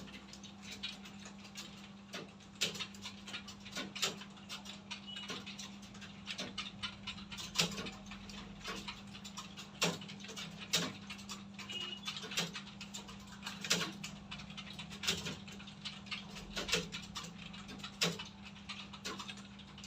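Computer keyboard keys clacking at an irregular pace as several students type, over a steady low hum.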